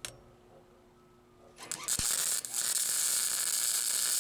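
Flux-core wire-feed (MIG Flux 80) welder arc sizzling steadily as a weld is laid on a sleeved steel exhaust pipe joint. The arc strikes about a second and a half in, with a brief falter shortly after, then runs on evenly.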